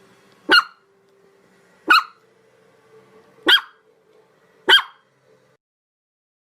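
A dog barking: four single, sharp barks spaced about a second and a half apart, with a faint hum underneath.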